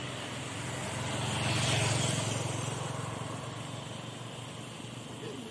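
A motor vehicle driving past on the road: its engine hum and road noise grow louder to a peak about two seconds in, then fade away.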